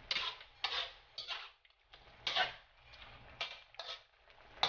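Metal spatula scraping and knocking against a speckled coated wok while chicken pieces in soy sauce are stirred: a run of short, sharp scrapes, roughly two a second and unevenly spaced, the loudest a little past the middle.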